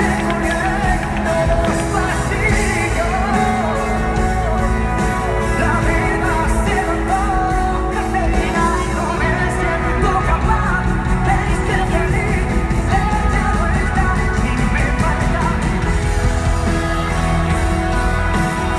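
Live pop-rock band playing with a male lead singer, loud and continuous, heard from within the audience.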